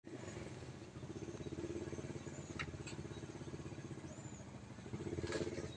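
Small vehicle engine idling steadily with a rapid, even pulse, with a sharp click about two and a half seconds in and another near the end.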